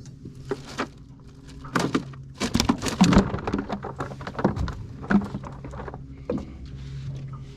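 A quick run of knocks, rattles and patter, loudest about three seconds in, from a just-caught crappie and tackle being handled in a fishing boat. Under it runs a steady low electric hum.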